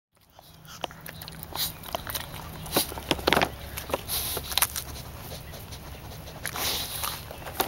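Scattered rustles and clicks from an Australian Shepherd moving and snuffling right at the microphone over dry grass and fallen leaves, with no barking.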